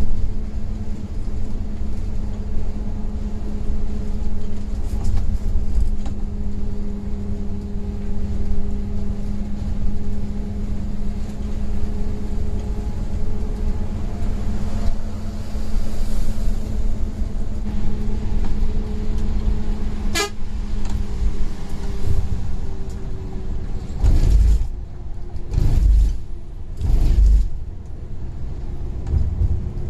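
Steady engine drone and road rumble of a Scania coach travelling on the highway. There is a sharp click about two-thirds of the way through, and three short louder bursts of rumble near the end.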